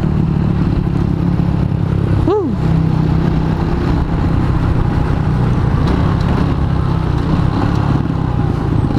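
Honda Supra motorcycle's single-cylinder four-stroke engine running steadily while riding. About two seconds in, a short tone rises and falls over it.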